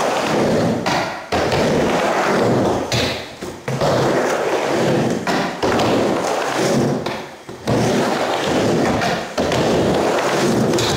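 Skateboard wheels rolling across a miniramp as the skater rides back and forth from wall to wall. The rumble dips and then surges back sharply about every two seconds.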